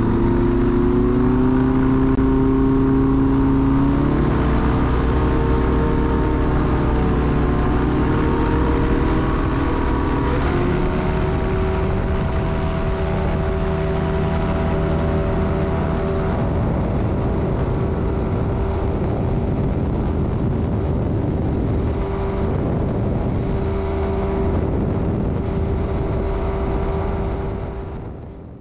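Light aircraft's Rotax engine and propeller running at high power, loud and steady. Its pitch climbs over the first few seconds and rises again about ten seconds in, then holds. The sound fades out near the end.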